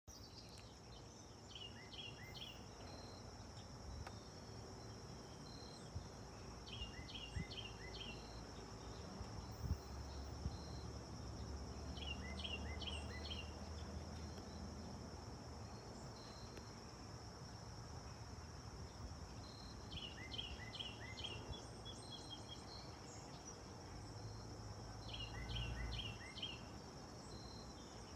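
A steady, high insect chorus, with a bird repeating a short song of three or four quick falling notes every five or six seconds. A low rumble swells up in the middle and again near the end.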